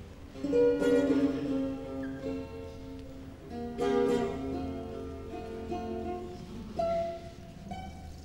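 Instrumental music played on a plucked string instrument, with loud struck chords about half a second in and again about four seconds in, and lighter plucked notes near the end.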